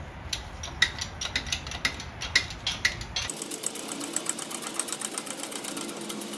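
Hydraulic bottle jack on a 20-ton shop press being pumped to press the oil-seal sleeve onto the harmonic balancer, giving sharp mechanical clicks about four a second. About halfway through the clicking turns faster and more even.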